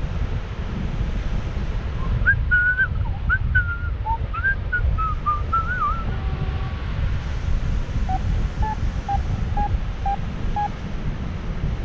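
Airflow rushing over the microphone in paraglider flight, a steady low rumble. Partway through come a few seconds of wavering whistled notes, and near the end a run of about six short, evenly spaced beeps of one pitch from the variometer, signalling weak lift.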